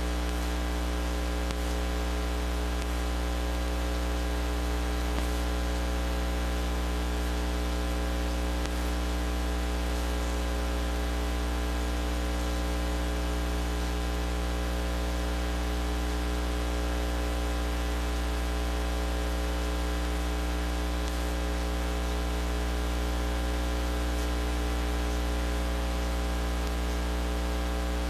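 Steady electrical mains hum with a stack of overtones under a layer of hiss, unchanging throughout.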